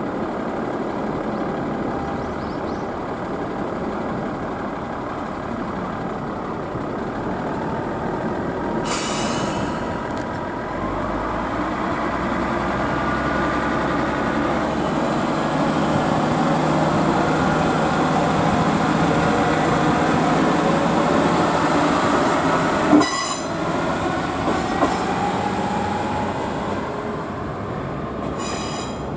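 Diesel railcar of the Tenryū Hamanako Railroad running, a steady engine and rail rumble that builds slightly about halfway through. Brief sharp noises cut in about a third of the way in, again later, and near the end.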